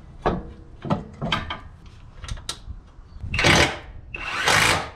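Metal parts knocking and clicking as they are handled under a car, then two short bursts from a cordless impact wrench running bolts in near the end.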